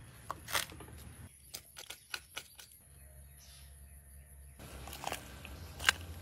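A chef's knife chopping dried chili pods on a cutting board: a run of sharp taps and clicks, then a few dry crackles and taps as the brittle pods are handled, the loudest click near the end.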